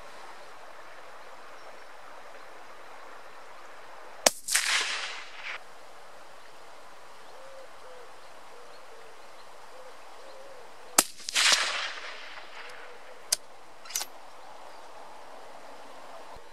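Two rifle shots at rabbits, about seven seconds apart, each a sharp crack with a report trailing off for about a second. Two fainter sharp clicks follow near the end.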